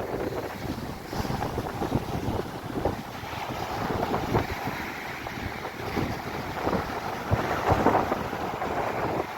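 Wind buffeting the microphone in uneven gusts and thumps, over a steady rush of sea.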